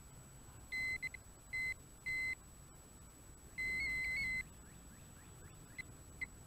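Metal detector beeping over a buried metal target: three short high tones, then a longer one about three and a half seconds in whose pitch wavers slightly. The hunter guesses the target is probably a pop top.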